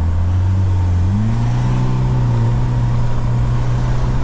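Toyota 2KD four-cylinder turbodiesel in a tuned Innova running under way, heard from inside the cabin; its pitch steps up about a second in and then holds steady.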